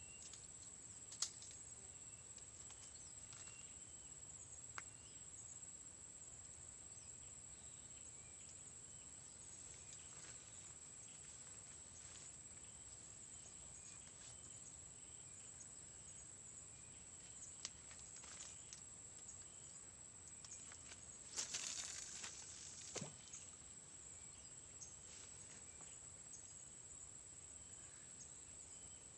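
Near silence under a steady high-pitched insect drone, like crickets. A few faint clicks are scattered through it, with a brief rustle about twenty-two seconds in.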